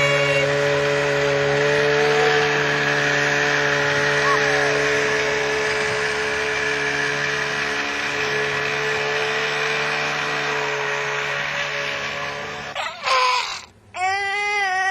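Small engine of a children's Arctic Cat Kitty Cat snowmobile running at a steady idle. About thirteen seconds in the sound cuts off, and a short wavering note follows.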